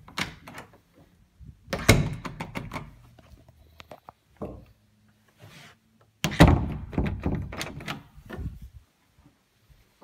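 Interior door knob turning and its spring latch clicking as the door is worked open and shut, with a thunk of the door meeting its frame as the latch catches. Two main bursts of rattling clicks and knocks, about two seconds in and again about six seconds in.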